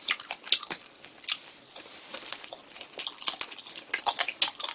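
A person chewing spicy chicken wing close to the microphone: a quick run of short, wet mouth clicks and smacks that gets busier near the end.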